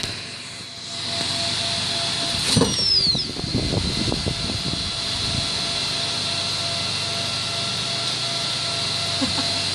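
Desktop computer's cooling fans running after power-on, a steady whirring hiss that comes up about a second in. A sharp knock about two and a half seconds in is followed by a brief falling whistle.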